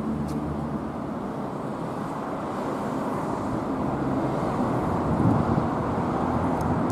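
Road traffic on a wide multi-lane city street: a steady rush of passing cars, swelling a little about five seconds in.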